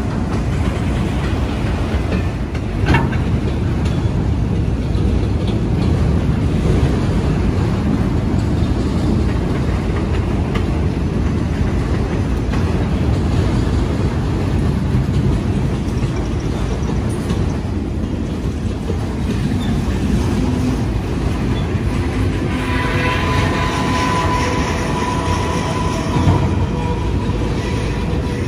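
Freight train of enclosed autorack cars rolling steadily past, steel wheels rumbling and clacking on the rails. A high, steady wheel squeal rises over the rumble for a few seconds near the end.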